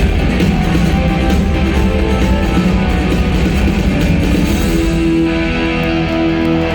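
Rock band playing live with electric guitars and drums. About five seconds in the beat drops out, leaving held guitar chords ringing.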